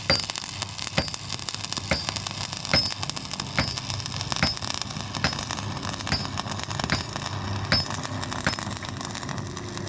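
Regular metal-on-metal strikes, about one every 0.8 seconds, each with a short high ring, over a steady hiss.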